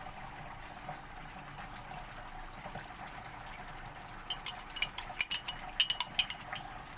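Yeast water poured from a glass jug into flour in a plastic bowl: a soft, steady pouring. About four seconds in, a quick run of sharp clinks of glass and metal as the jug meets the spoon in the bowl.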